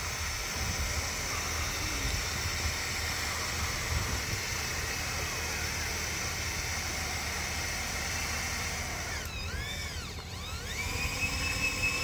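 The tipper pump of an RC dump truck whines steadily as it raises the loaded bed on its hydraulic ram to dump mud. Near the end the whine wavers up and down in pitch.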